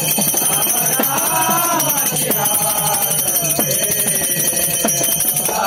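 A man singing a devotional bhajan, accompanied by brass hand cymbals (taal) struck in a steady rhythm, their ringing sustained over the singing.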